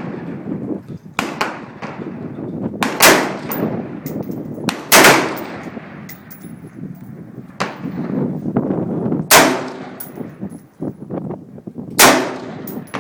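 Hand-built AR-15 rifle fired in single shots: four loud cracks a few seconds apart, each trailing off briefly. Fainter shots sound in between.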